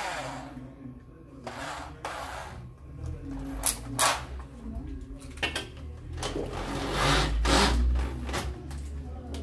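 Cordless drill run in short bursts against a masonry wall, with clicks in between. The longest and loudest run comes about two-thirds of the way in.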